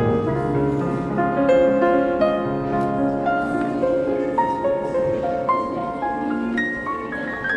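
Background music: a gentle piano melody played as single notes over sustained chords.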